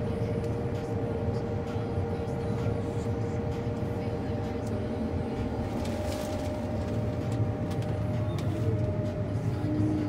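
John Deere S780 combine's diesel engine and threshing machinery running steadily, heard from inside the cab. A steady whine over the drone fades away about two-thirds of the way through.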